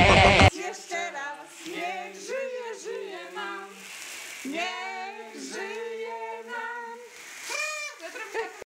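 Loud music cuts off about half a second in, and a few voices then sing together without accompaniment, stopping abruptly near the end.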